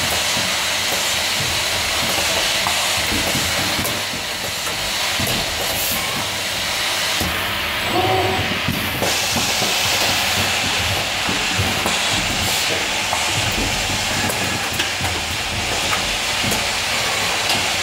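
Steady hiss of an automated production line running, with its conveyor belts and pneumatic handling heads at work. A few faint clicks sound over it.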